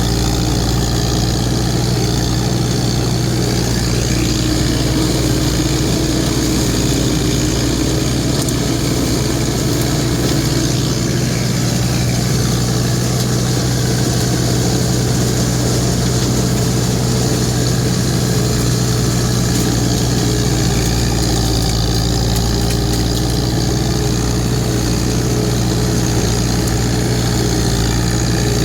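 An engine running steadily at an even speed, with a constant low drone.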